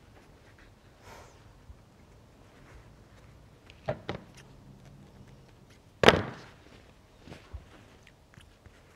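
Cotton fabric being handled and rustled on a tabletop, with two sharp knocks around four seconds in and a louder thump about six seconds in.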